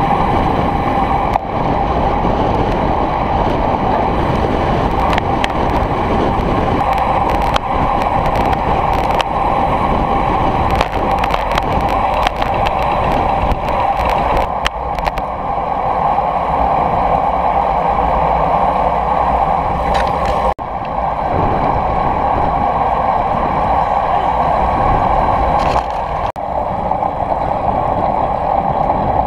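Wind rushing over the camera's microphone, with road noise from a road bike riding at speed in a bunch of cyclists. It is a steady rushing noise that breaks off briefly twice in the second half.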